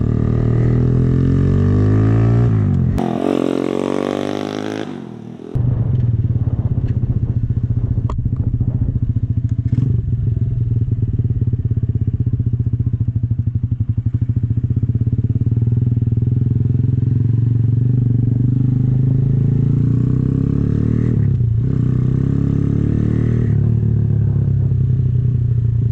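Exhaust of a 150cc single-cylinder Honda Grom-clone motorcycle fitted with a loud aftermarket exhaust, heard while riding. The engine note shifts for the first few seconds, then drops away for a couple of seconds and comes back abruptly. From there it runs steadily, with one brief dip near the end.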